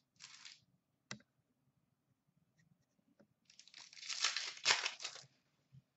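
A hockey card pack's foil wrapper being torn open and crumpled in the hand: a short rustle and a sharp tap in the first second, then about two seconds of crinkling and tearing starting about three and a half seconds in.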